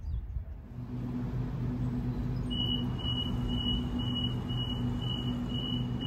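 A Sydney Trains double-deck electric train standing at the platform with a steady low hum. From about two and a half seconds in, its door-closing warning sounds: a high beep about twice a second while the doors shut.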